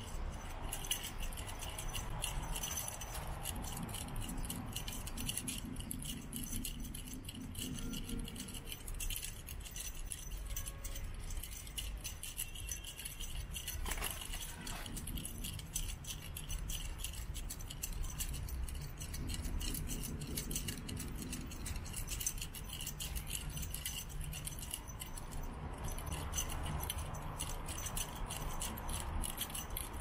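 Insects chirring: a steady, fast, dry rattling with an even high hiss above it.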